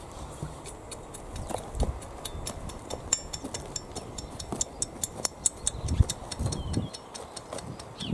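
Metal garden rake dragged through soil in a raised bed, its tines scraping and clicking over grit and small stones, with a few dull thumps.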